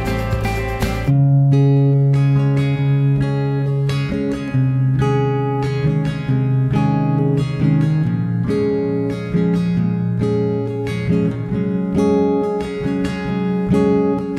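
Background music: an acoustic guitar playing a run of plucked notes over steady low notes, starting about a second in.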